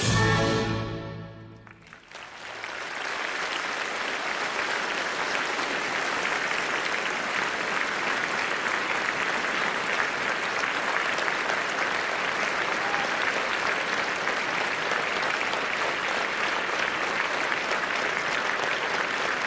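The orchestral music ends on a held chord that fades out over the first two seconds, then an audience applauds steadily.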